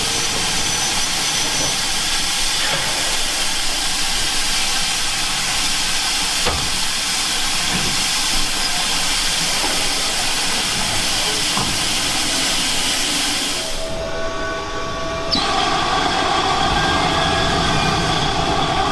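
Steam locomotive 2857, a heavy freight engine, hissing steam as it works along the line. The hiss briefly drops away about three quarters of the way through, then returns.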